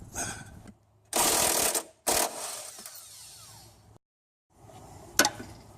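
Hand tools on the engine during timing belt work: a ratchet wrench turning in two short, loud runs, the second trailing off, then a single sharp metallic click near the end.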